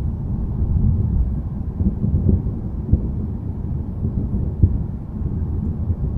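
Distant thunder rumbling low and continuously, swelling slightly then easing, with two short sharp low thumps in the middle.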